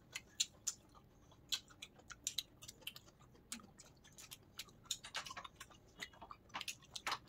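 A person chewing a mouthful of pizza: soft, irregular wet clicks and smacks of the mouth.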